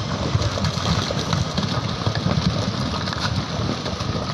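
Rockfall in a landslide: rocks and boulders tumbling down a rock face as a continuous low rumble, with repeated sharp cracks of stone striking stone.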